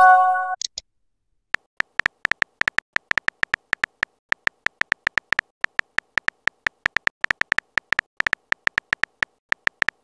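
A brief chime of several pitches as a chat message is sent, then a long run of quick synthetic key-tap clicks, several a second, as a new message is typed on a texting app's keyboard.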